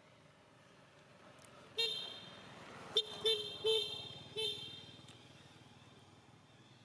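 A vehicle horn giving five short toots while a vehicle passes, its running noise swelling and then fading.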